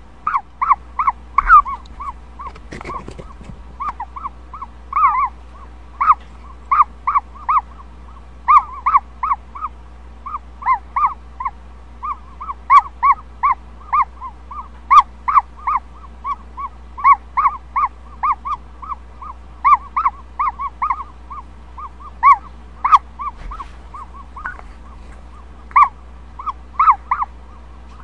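Ostrich chick peeping from inside its pipped egg during hatching: short pitched calls, several a second in uneven runs, over a faint low steady hum.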